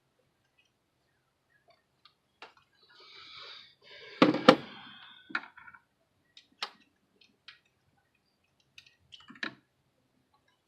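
Scattered clicks and knocks of hands and tools on plastic as a stuck ignition coil is worked loose from the engine. Two sharp knocks about four seconds in are the loudest, amid a stretch of rustling, then lighter isolated clicks follow.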